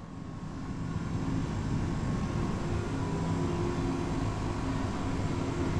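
Steady running noise of a vehicle, with a low hum and a faint steady tone, building up over the first second or so.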